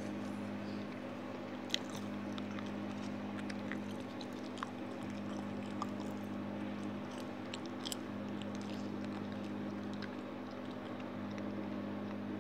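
A steady low electrical hum with faint, scattered clicks of small handling noises.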